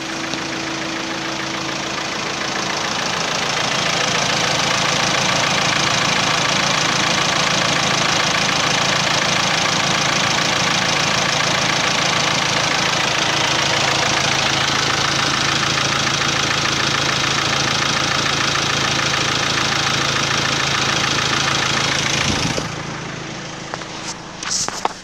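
The 2016 Ford Ranger's 2.2-litre four-cylinder turbo diesel idling steadily. It gets clearly quieter about three-quarters of the way through, and a few short knocks come near the end.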